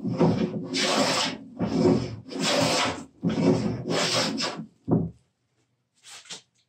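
A wooden-bodied jointer plane cutting heavy shavings off a wooden workbench top in about six quick strokes, taking off a lot of material fast. A short last stroke comes near five seconds, then the planing stops.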